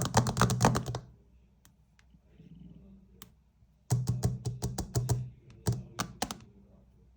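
Rapid, irregular clicking with a low buzz beneath it, in two bursts: about a second at the start, then another lasting about two and a half seconds from about four seconds in.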